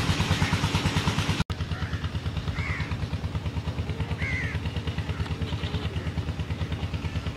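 An engine running steadily with an even, fast low beat of about ten pulses a second. A bird chirps twice over it.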